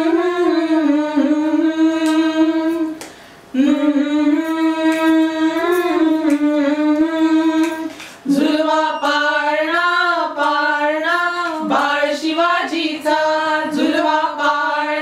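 Several women singing together without accompaniment, a Marathi cradle song (pāḷaṇā) for a newborn, in long held notes. The singing breaks briefly for breath about 3 seconds and 8 seconds in.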